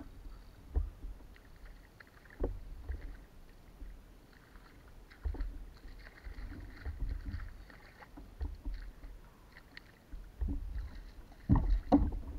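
A hooked fish thrashing and splashing at the surface beside a plastic sit-on-top kayak, with irregular low thumps and knocks against the hull. The splashing is busiest in the middle, and a cluster of louder knocks comes near the end as the fish is lifted by the leader.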